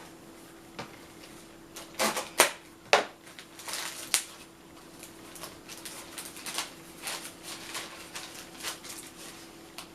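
Sticker packs being opened and handled by hand: irregular crinkles and sharp clicks of packaging and stickers, loudest about two to four seconds in.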